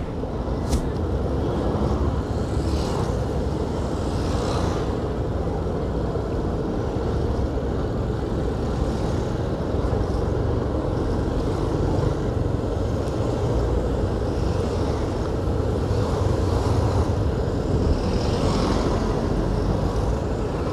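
Steady engine and road noise from a vehicle driving in traffic, a continuous low rumble.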